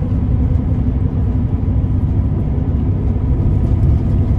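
Steady low drone and rumble of a Scania K340EB4 coach's straight-six diesel and road noise, heard from inside the passenger cabin while cruising at speed, with a faint steady whine above it.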